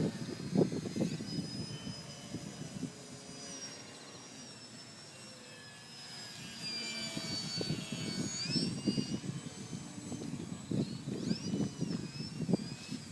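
Electric motor and propeller of a Techone SU-31 RC model plane whining in flight, the pitch sliding up and down as it changes throttle and passes, loudest about halfway through and again near the end. Wind buffets the microphone with a gusty rumble.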